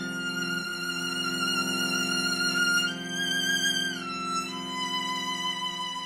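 Violin and cello duet: the violin holds long high notes with vibrato, changing note a few times and sliding down about four seconds in, over sustained low cello notes.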